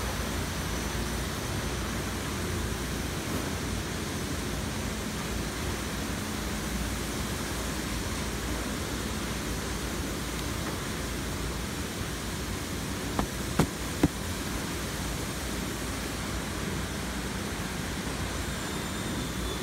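Steady machine and ventilation noise in a pepper packing hall, with conveyor machinery running. A few short knocks come about two-thirds of the way through.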